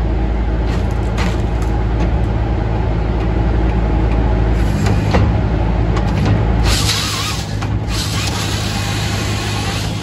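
Halverson HWP120 firewood processor running steadily under power, with a louder hissing, rasping stretch from about seven to eight and a half seconds in and a shorter one around five seconds in.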